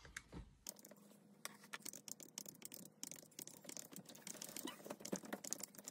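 Faint, rapid clicks of calculator keys being pressed as figures are added up.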